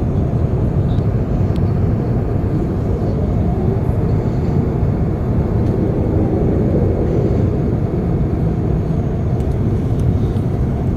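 Cabin noise inside an Airbus A380's upper deck in flight: a steady low rumble of airflow and engines.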